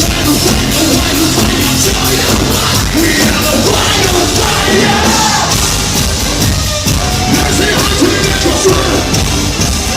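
Live metal band playing loudly, with heavy drums, distorted guitars and shouted vocals.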